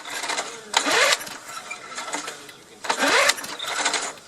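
Old Briggs & Stratton lawn mower engine being pull-started with its recoil starter rope: two pulls about two seconds apart, each a whirr rising in pitch as the engine cranks. It turns over but doesn't catch.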